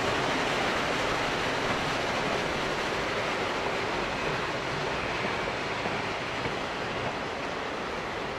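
Open-sided railroad passenger cars rolling past on the track: a steady rushing noise of wheels on rail that eases off slightly.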